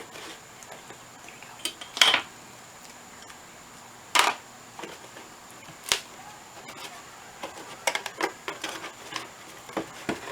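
Scattered light knocks and taps of a cardboard box and marking pen being handled: single sharp taps a couple of seconds apart, then a quicker run of small taps near the end.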